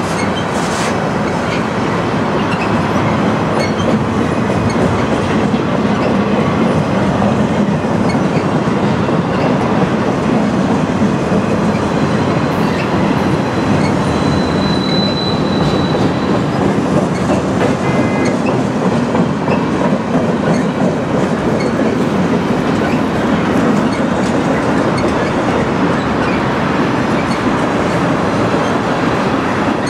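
Loaded freight flatcars rolling past close by: a loud, steady rumble and clatter of steel wheels on the rails.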